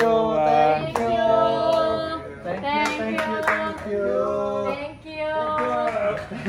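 A female voice singing a slow song in long held notes that bend in pitch, over steady instrumental backing.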